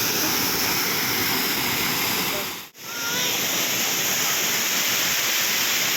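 Waterfall rushing as a steady, loud wash of falling water. It drops out for an instant a little before halfway and comes straight back.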